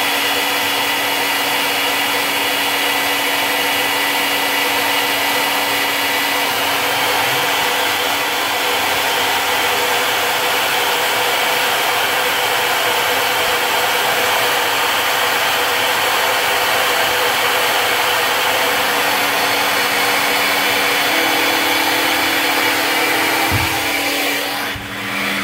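CNC Tensilkut III milling spindle running and its end mill cutting a wood composite blank: a steady, loud machining whine with a rough cutting hiss. Near the end the sound drops and turns muffled as the machine's shield is closed.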